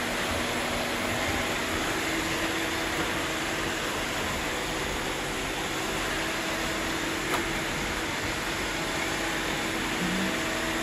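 Several robot vacuum cleaners running at once, giving a steady whir of suction motors and brushes with a faint hum. A single light click comes about seven seconds in.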